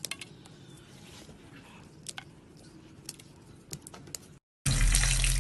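Scissors snipping legs and wings off locusts: a few faint snips, some in quick pairs, spread over several seconds. Near the end, after a brief dropout, a loud steady sizzle of locusts frying in hot oil takes over.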